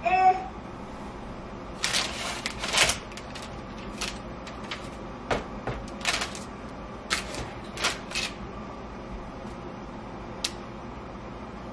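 Kitchen prep noises: a run of knocks, clicks and short scrapes as halved spaghetti squash and utensils are handled on the counter, busiest in the first eight seconds or so. A cat meows briefly at the very start.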